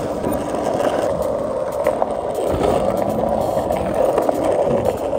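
Skateboard wheels rolling steadily over rough pavement, with a few small clicks from cracks or grit.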